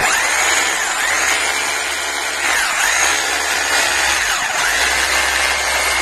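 Corded Power Action rotary hammer drill running free, its motor whine rising and dipping a few times as the trigger is squeezed and eased. It is powered from a 1500 W inverter and runs up to speed without strain.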